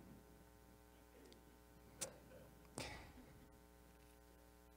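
Near silence: room tone with a faint steady hum, broken by two brief clicks about two and three seconds in.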